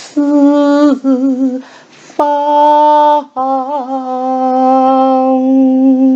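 A woman chanting classical Chinese verse in the traditional 吟誦 style: three sung syllables with quick breaths between them, the last drawn out for several seconds, wavering at first and then held steady.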